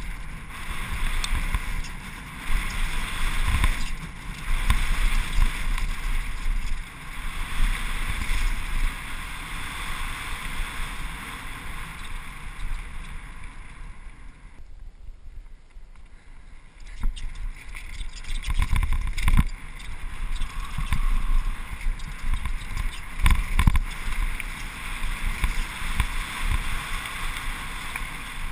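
Wind buffeting the action camera's microphone over the rumble of a downhill mountain bike's tyres on a dirt and grass trail, with frequent knocks from bumps through the frame and suspension. It drops quieter for about three seconds around the middle, then the rumble and knocks return.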